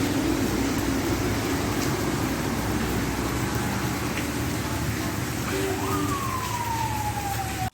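Steady rain noise with a low hum underneath. Near the end a single tone rises quickly, then slowly falls away. Everything stops abruptly at once.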